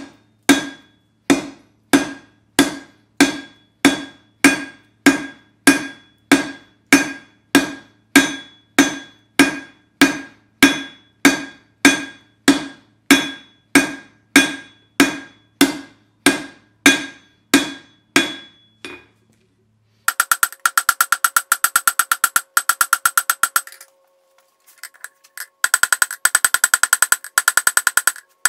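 Hand hammer striking a hot half-inch steel round bar on an anvil, drawing out a taper: steady, even blows about one and a half a second, each with a short metallic ring. After about twenty seconds the strikes come much faster and lighter, with a brief pause near the end.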